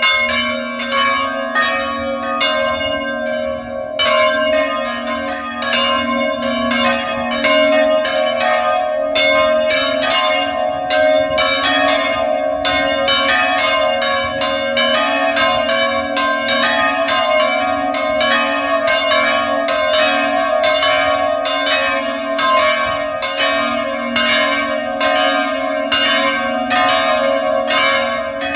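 Nineteenth-century bronze church bells ringing a rapid festive peal, struck about two to three times a second, their tones overlapping into a continuous hum.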